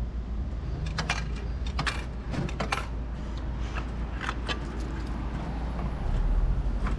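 Vending machine dispensing a selected item: a run of sharp clicks and rattling clatters as the product drops and the plastic retrieval flap is pushed open, over a steady low hum.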